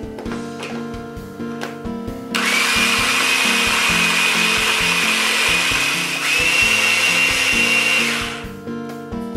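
Bosch cordless hand blender running in its chopper attachment, puréeing chunks of peeled kiwi: a steady motor whine with the whir of the blade. It starts a couple of seconds in, steps up slightly in pitch about six seconds in, and stops after about six seconds.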